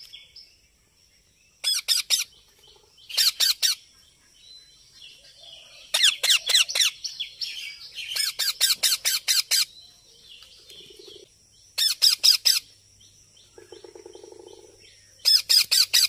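Rose-ringed parakeets calling in about six short bursts of rapid, repeated high calls, a few seconds apart, over a faint steady high tone.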